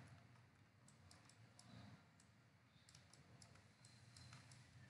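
Near silence broken by faint, scattered clicks of a computer mouse, a dozen or so, at an uneven pace.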